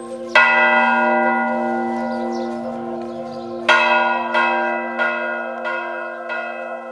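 Church bell ringing: one strike that rings on, then about three and a half seconds in a run of strikes about one and a half a second, each fading.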